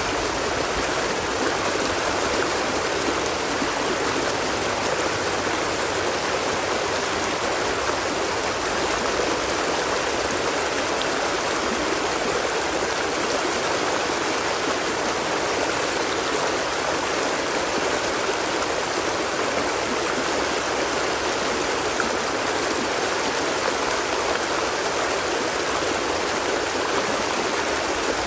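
Water flowing in a stream: a steady, even rush with no breaks.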